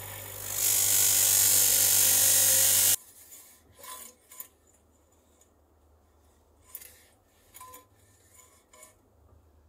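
Flat steel tool pressed against the spinning cardboard wheel of a DeWalt bench grinder: a loud, even grinding rasp that cuts off suddenly about three seconds in. After that, a few soft knocks and taps as the stopped cardboard wheel is handled.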